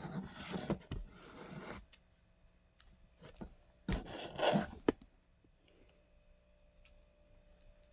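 Rubbing and scraping handling noises from items being taken out and handled during an unboxing, in two bursts: one over the first two seconds and a shorter one about four seconds in.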